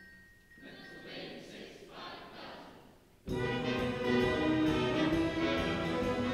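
Symphony orchestra playing: a hushed passage of soft, hissing swells, then the full orchestra comes in suddenly and loudly a little past the middle, holding sustained chords in brass and strings.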